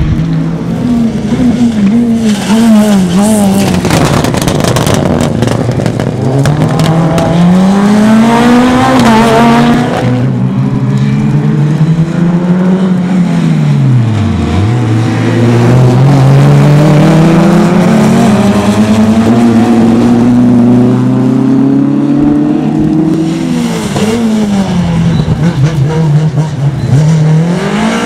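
Rally car engines revving hard on a tarmac sprint course. They climb through the gears with sharp drops at each shift, then fall away when the driver lifts off for corners, deepest about halfway through, before picking up again.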